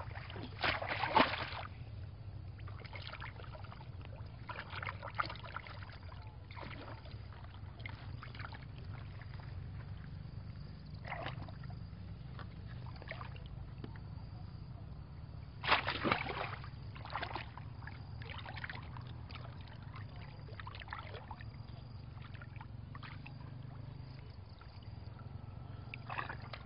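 Shallow muddy water splashing and sloshing as a woven bamboo plunge basket is pushed down into it and worked about, in short bursts, the loudest about a second in and again about sixteen seconds in. A steady low hum runs underneath.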